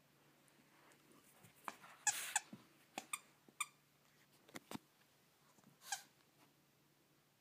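Shih Tzu thrashing and shaking her head with a toy on carpet: scattered scuffles, clicks and knocks, with a high squeak about two seconds in and another near six seconds.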